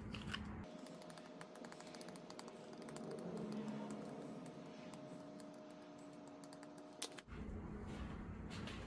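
Spice shaker of dried Italian seasoning being shaken over a plate: a rapid, faint run of light ticks and rattles, ending with a sharp click about seven seconds in.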